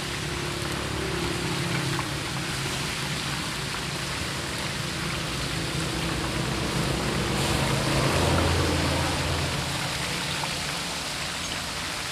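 Chapli kababs frying in a wide pan of hot fat, the oil sizzling steadily with a rain-like hiss. A low hum swells briefly about eight seconds in.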